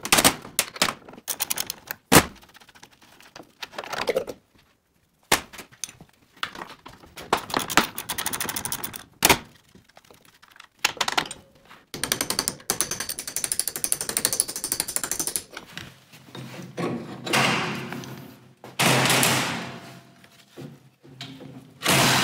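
Socket ratchet clicking in quick runs as the mounting bolts of a Jaguar E-Type's rear coil-spring-and-damper units are undone, with sharp metallic clunks of tools and parts on a steel workbench. Near the end come a few longer scraping sounds as a spring-and-damper unit is worked free.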